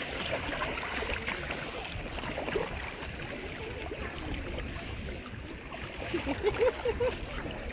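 Shallow seawater sloshing and splashing around people wading waist-deep, over a steady low rumble of wind on the microphone.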